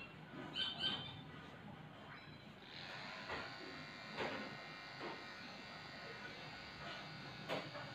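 Electric dog-grooming clippers buzzing steadily while trimming a shih tzu's paw, louder from about three seconds in, with a few light clicks. A couple of short high squeaks come near the start.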